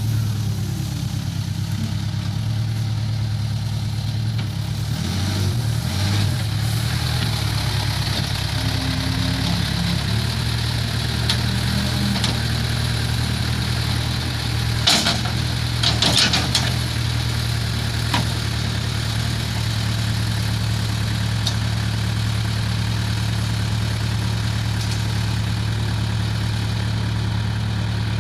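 Case 580K backhoe loader's diesel engine idling steadily. About halfway through come a few sharp knocks.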